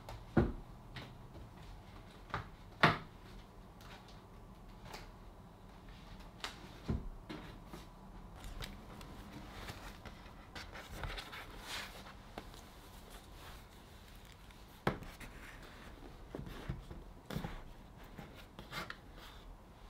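Scattered light knocks, clicks and rustles of things being handled on a wooden desk, with two sharper knocks near the start, over quiet room tone.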